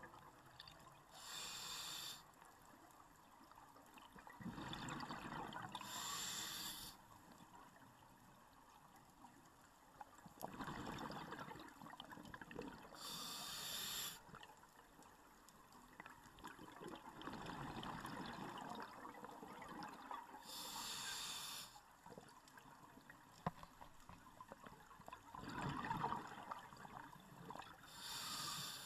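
Scuba diver breathing through a regulator underwater: a short hiss on each inhale and a longer rush of exhaled bubbles, repeating about every seven seconds, four or five breaths in all.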